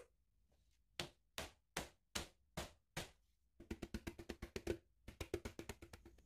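A metal baking tray of piped macaron shells being rapped against a wooden board to knock air bubbles out of the batter: a single knock, then six knocks about 0.4 s apart, then two quick runs of rapid tapping, each with a slight metallic ring.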